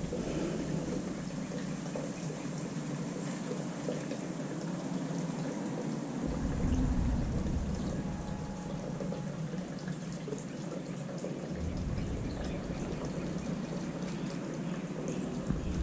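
Water pouring and trickling steadily. Bouts of low rumble come in about six seconds in and again from about halfway to near the end.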